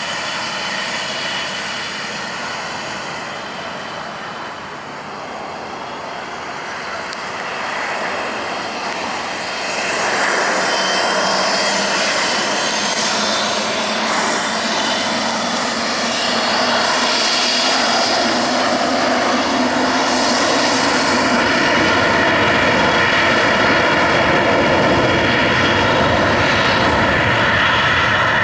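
Dassault Falcon 7X business jet's three Pratt & Whitney Canada PW307A turbofans running with a steady whine as the jet lines up on the runway. The sound grows louder about ten seconds in and again a few seconds later as the engines spool up for the takeoff roll.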